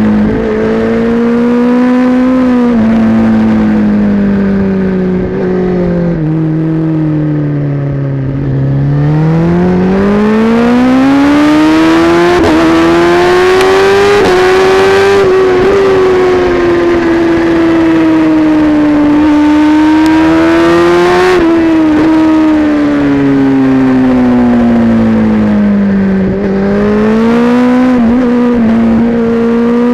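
Kawasaki Ninja ZX-10R inline-four with an Akrapovic exhaust at race pace, heard from on board: the engine note drops step by step for the first eight seconds or so, then climbs hard under acceleration, eases down again, and rises once more near the end.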